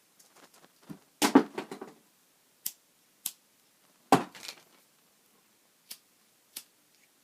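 Lighters clicking and clattering against each other as they are handled and sorted: a louder rattle about a second in and another about four seconds in, with a few single sharp clicks between and after.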